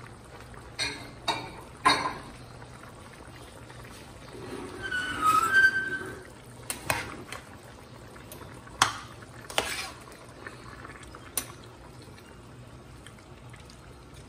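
A metal spoon stirring meat and broth in a stainless steel pot, knocking sharply against the pot several times, with a longer, louder scrape about five seconds in.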